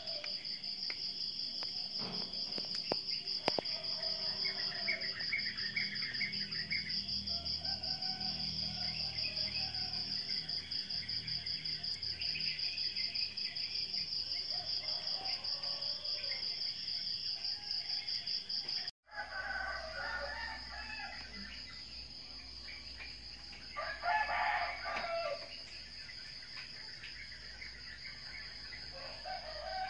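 Outdoor ambience: a steady, finely pulsing high trill of insects, with bird calls scattered over it. The loudest call lasts about a second and a half, a few seconds after a brief break in the sound about two-thirds of the way through.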